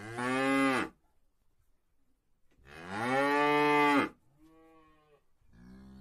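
Cattle mooing: two loud, drawn-out moos, the second lasting about a second and a half, then two quieter moos near the end.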